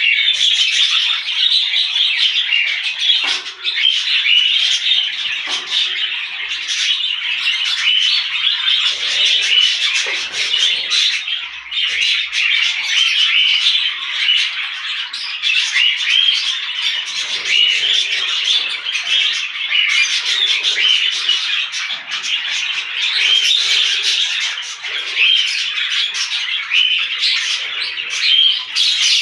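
Mixed flock of small pet parrots (budgerigars, lovebirds, cockatiels and kakariki) chirping and chattering all at once in a dense, unbroken din of short high calls.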